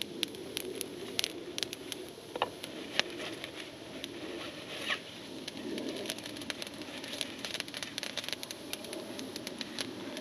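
Campfire wood crackling, with many irregular sharp pops, over a steady low cooing of pigeons.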